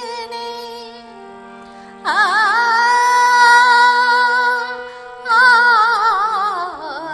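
A woman singing long held notes with a wide vibrato over steady held instrumental notes. The voice falls away near the start, leaving the accompaniment alone, then comes back strongly about two seconds in with two long notes.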